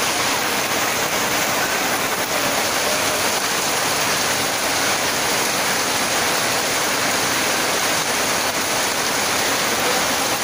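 Heavy downpour falling hard on a tin roof and into a flooded yard: a steady, dense rush of rain with no let-up and no separate drops standing out.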